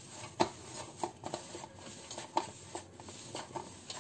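Semolina dough being kneaded by hand against a stainless steel plate: irregular soft rubbing and squishing strokes, a few to the second, as the heel of the palm presses and drags the dough across the metal.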